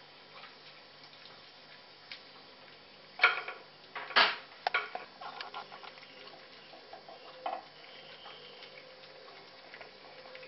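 A food dish clattering sharply twice, about three and four seconds in, as puppies eat from it, followed by lighter clicks and taps.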